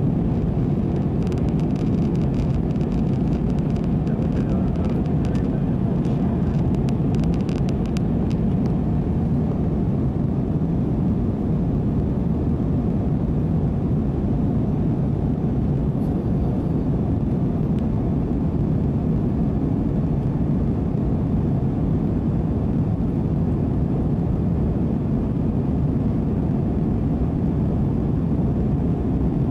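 Steady cabin noise of a jet airliner climbing out, the engines and rushing air heard from inside by a window seat. A faint crackle of small ticks comes and goes over the first several seconds.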